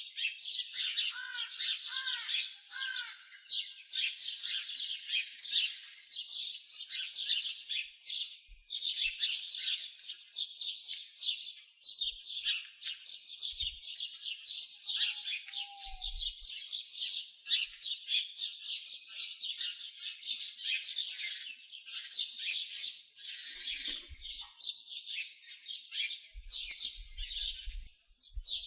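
Many small songbirds chirping and twittering at once in a dense, continuous chorus. Three short falling whistled notes come through lower down about a second in.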